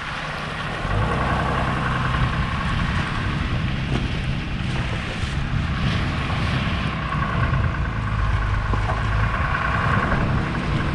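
Pickup truck driving up a wet, snow-dusted dirt forest road, picked up by a camera mounted on the outside of the truck: steady engine and tyre noise on the wet surface, stepping up in level about a second in.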